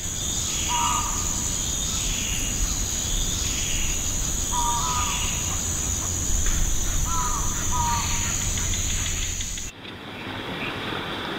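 Outdoor nature ambience: a steady high-pitched insect drone with a few short bird calls. About ten seconds in it cuts off abruptly and gives way to quieter, even vehicle road noise.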